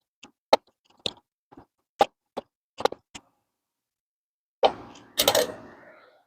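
Small sharp clicks of metal tools at uneven intervals while the belt buckle's screws are fitted with an Allen wrench, then a louder clatter and rustle near the end.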